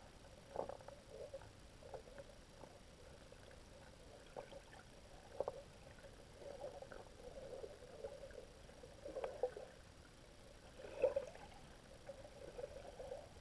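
Faint underwater sound in shallow seagrass: an irregular crackle of small clicks and soft knocks, with a few louder knocks, the loudest about eleven seconds in.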